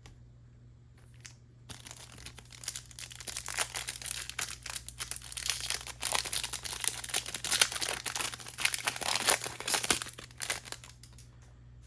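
Plastic-foil trading card pack wrapper being crinkled and torn open by hand, a dense crackling rustle that starts about two seconds in and stops shortly before the end.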